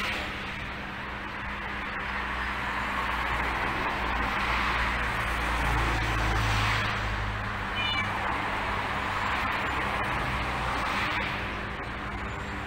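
Cats meowing, with a short high-pitched mew about eight seconds in.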